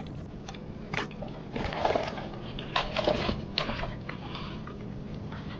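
Irregular clicks, taps and rustles of a fresh catch of small crabs, shrimp and fish being handled and sorted by hand.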